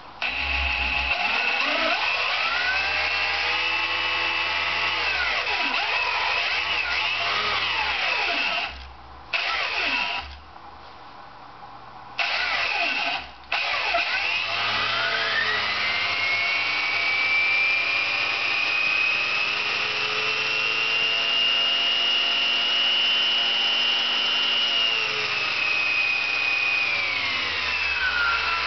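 Electric motor turning a scooter's belt-drive CVT transmission on a test stand, speeding up and slowing down, so that its whine rises and falls. The whine cuts out briefly a few times, then climbs to a high, steady whine held for several seconds before winding down near the end.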